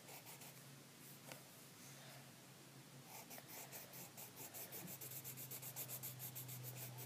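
Colored pencil scratching on a coloring-book page: faint strokes at first, then quick back-and-forth shading strokes, several a second, from about three seconds in.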